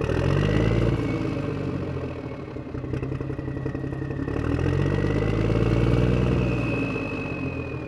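An engine running steadily with a faint high whine. It swells louder twice, once at the start and again after the middle, then eases off near the end.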